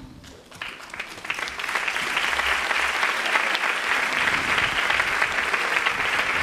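Audience applauding: a few scattered claps at first that build within about two seconds into full, steady applause.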